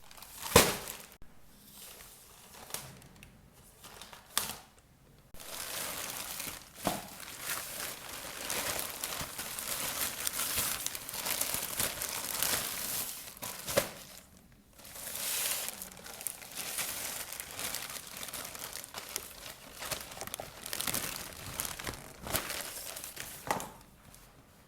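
Packaging crinkling and rustling as a new pair of Crocs clogs is unwrapped, with some tearing. There is a sharp snap about half a second in and a short pause a little past the middle.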